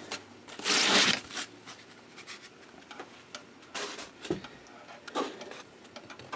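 Foam packing pieces being pulled out and handled: a loud scraping rub about a second in, then a few soft knocks and rustles.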